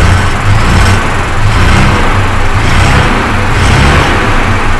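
Sinotruk HOWO truck's diesel engine idling steadily, heard from inside the cab.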